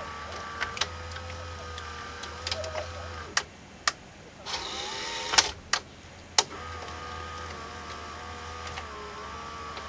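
Sharp VC381 VCR's tape mechanism running with a steady motor whine. About three seconds in the whine stops, there are several sharp clicks and a brief whirr with a rising and falling pitch, and then the steady whine returns.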